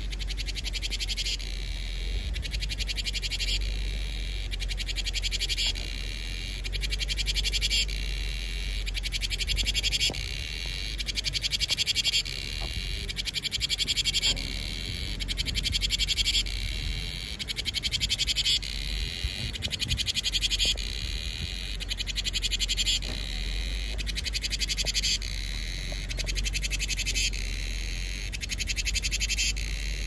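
Cicadas singing: a high, rapidly pulsing buzz that swells into louder phrases, each cutting off and starting again about every two seconds.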